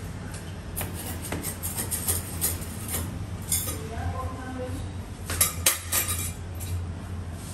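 Scouring pad scrubbing over glazed ceramic tiles to clear grout haze, with scattered sharp clicks and clinks, a quick cluster of them a little before the end, over a steady low hum.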